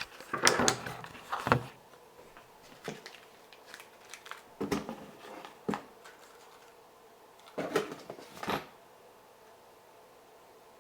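A small parts package being handled and opened: scattered rustles, clicks and knocks of packaging, in short bursts with quiet gaps between.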